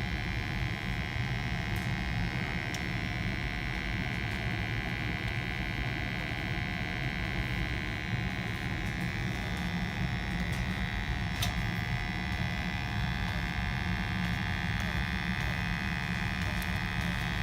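Steady hum of a running Carrier Infinity gas furnace at high fire, blower and burners going, with many steady tones and a few faint ticks.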